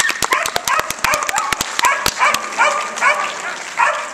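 A Border Collie barking repeatedly in high, sharp barks, about three a second. A quick run of sharp claps sounds under the barks during the first two seconds.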